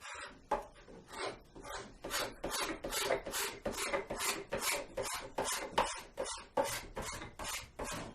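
A putty knife ground into a hand scraper drawn in quick repeated strokes, about three a second, over a guitar body's binding, scraping it level.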